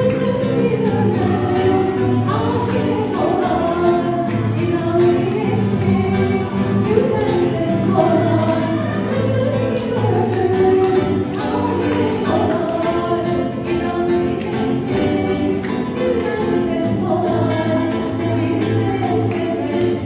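Music: a song with singing voices over instrumental accompaniment.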